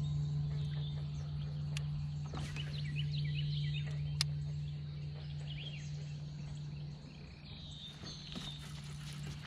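Outdoor ambience: a steady low hum with scattered bird chirps and two sharp clicks.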